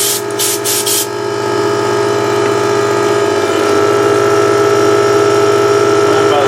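Small Porter Cable electric air compressor running steadily, its motor and pump filling the tank. There are a few short hisses in the first second.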